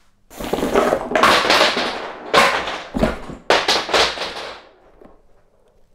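An added sound effect of four loud, noisy blasts, each starting suddenly and dying away within about a second.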